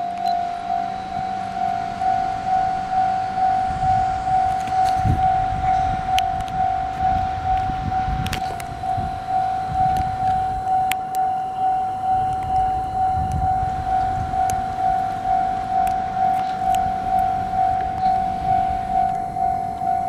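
Japanese railway level-crossing alarm ringing a steady electronic tone that pulses about twice a second. It warns that a train is approaching.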